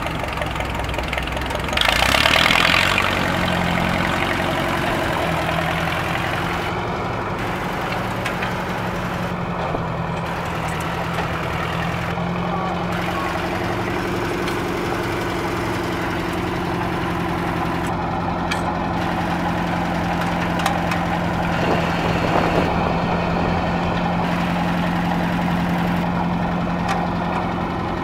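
John Deere utility tractor engine running steadily. Its speed rises in the first few seconds, with a brief, louder burst of noise about two seconds in.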